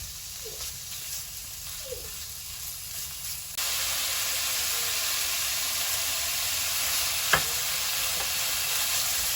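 Food frying in hot oil in a pan: a quieter sizzle with small crackles, then an abrupt jump to a loud, steady sizzle a little over a third of the way in. One sharp click comes about three quarters through.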